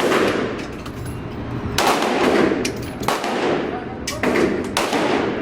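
Gunshots at a shooting range: about five sharp shots, irregularly spaced a second or so apart, each with a long echoing tail.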